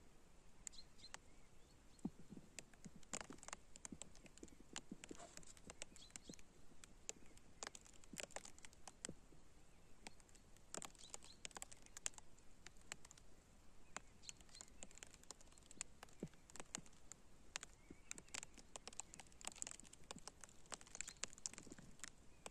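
Faint, irregular light clicks and ticks, several a second, over an otherwise near-silent background.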